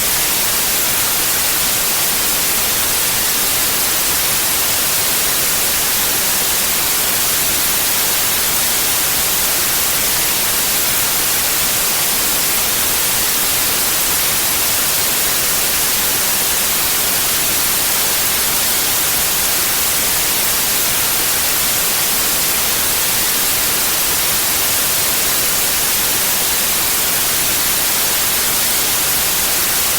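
Steady white noise, an even hiss across the whole range of pitch, with no change.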